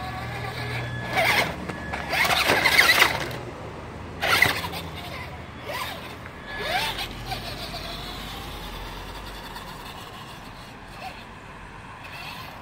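Traxxas Stampede RC monster truck driving in short bursts on concrete, four whirring spurts of motor and tyres that rise and fall in pitch, the loudest about two to three seconds in.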